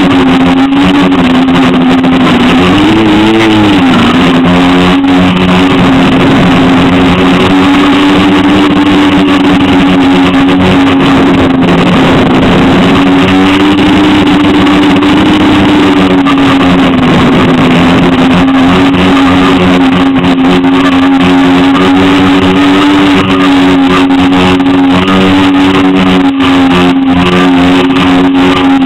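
Loud, steady hum of a multirotor drone's electric motors and propellers, heard from the camera mounted on the craft. The pitch swells and falls briefly about three seconds in and sags a little around the middle.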